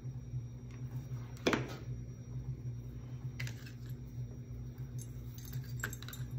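A hot glue gun set down on a wooden craft table with a sharp knock about a second and a half in, then a few light clicks and taps of hands working a small greenery sprig onto a candy cane, over a steady low hum.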